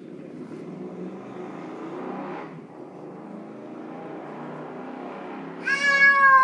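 Pitbull growling in play, a steady rough low rumble. Near the end a loud, wavering high-pitched squeal breaks in.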